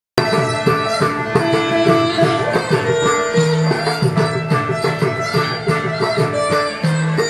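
Carnatic music for a Bharatanatyam piece, starting abruptly: held melodic notes over a steady drone, with regular drum strokes, in raga Shanmukhapriya set to rupaka tala.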